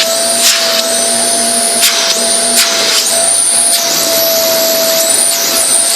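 Hoover Alyx 2000-watt cylinder vacuum cleaner running with a steady whine, broken by sharp pops at irregular intervals of about a second. The popping comes from the motor, which the owner suspects is arcing.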